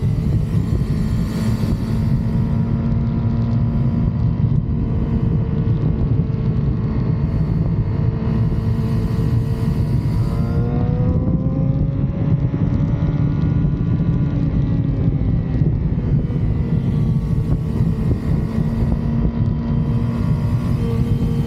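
2006 Yamaha R6's stock inline-four engine running at steady cruising revs under heavy wind rumble; its pitch rises about ten seconds in, then holds.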